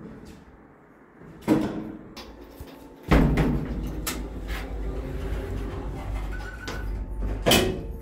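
Lift doors being worked: knocks from the hinged landing door about one and a half and three seconds in, then a few button clicks. Near the end the car's sliding doors close with a thud. A steady low hum runs from about three seconds in.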